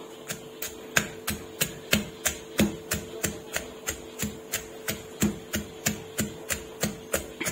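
Wooden pestle pounding long beans and chillies in a clay mortar: a steady rhythm of dull knocks, about three strikes a second, with a faint steady hum underneath.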